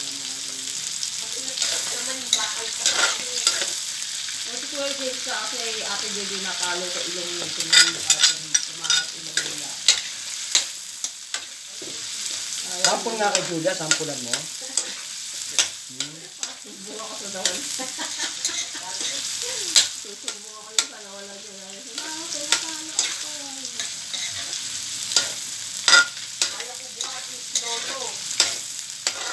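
Meat, onion and garlic sizzling in hot oil in a metal wok, with a metal spatula scraping and clacking against the pan as the food is stirred. Sharp taps come irregularly over a steady frying hiss.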